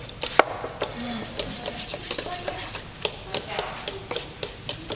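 Spoon stirring and mashing a thick banana batter in a stainless steel bowl: soft squelching with frequent, irregular clicks of the spoon against the metal bowl.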